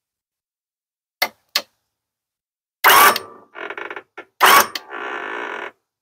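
Powerwinch P92001 popup camper lift winch being worked while its upper limit switch is set: two small clicks, then two loud clunks with short rattling between them, and near the end a steady motor run of about a second that cuts off.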